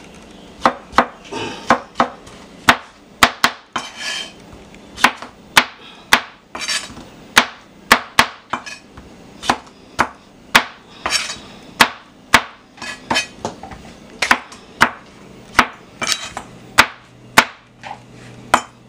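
Chef's knife chopping tomatoes on a plastic cutting board: sharp knocks of the blade hitting the board, about two a second and fairly regular.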